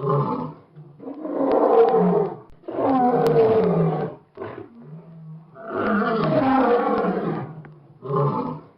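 A lion roaring repeatedly: three long roars of one to two seconds each, with shorter grunting calls between them and near the end.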